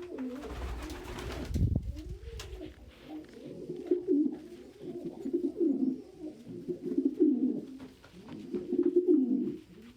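Domestic pigeons cooing in a loft: repeated low, wavering coos, the kind of cooing a cock pigeon does when asserting himself. A brief low rumble with a few clicks comes early on.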